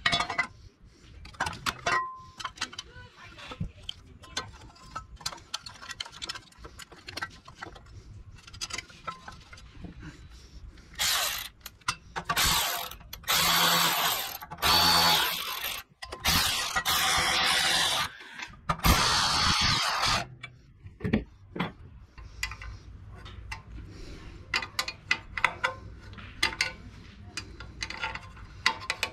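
A cordless power driver with a socket extension runs in about five short spurts, starting about 11 s in, as it drives the bolts of a Briggs & Stratton engine's air cleaner base plate. Light clicks of hand tools and small metal parts come before and after.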